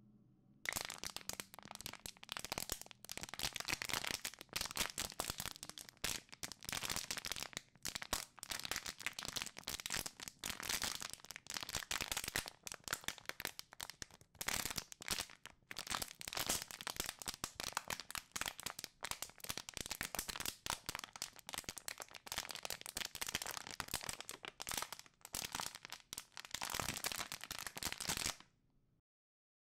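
Close crackling and rustling of long hair being gathered and twisted into a bun by hand, in quick uneven bursts with brief gaps, stopping shortly before the end.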